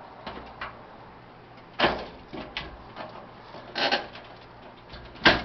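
The metal lid of a Coleman 413-H camp stove is being worked back onto the stove body, with small clicks and scrapes. Three louder clunks come about two seconds apart, the last one the loudest.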